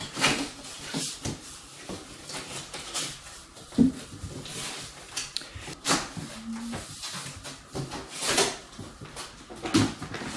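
A cardboard mattress shipping box being opened by hand: irregular rustles, scrapes and knocks as the top is worked and the flaps are pulled open, with a sharp knock about four seconds in and a brief cardboard squeak about six seconds in.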